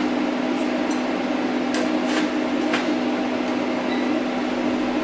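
Steady electrical hum of a TIG welding machine, with a few short clicks and crackles about two seconds in.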